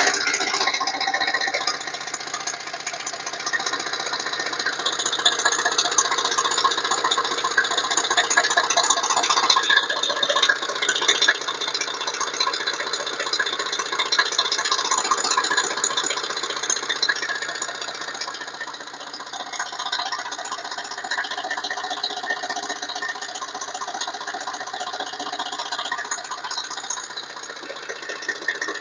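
Chrysler Voyager turbodiesel engine running with a rapid rattling clatter.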